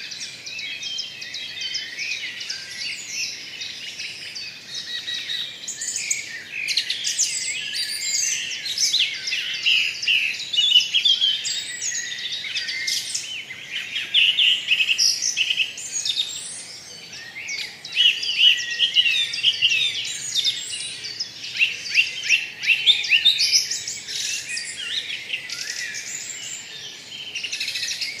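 Many birds chirping and singing at once: a dense chorus of quick, high, overlapping calls.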